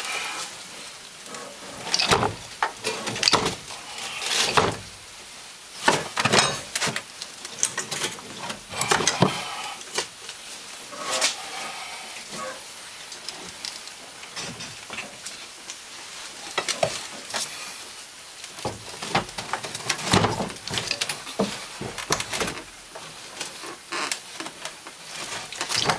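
Irregular metal clunks, knocks and scrapes as the loosened engine of a Honda Big Red 700 side-by-side is rocked, slid forward and levered by hand against its frame. The knocks come in uneven clusters with no steady rhythm.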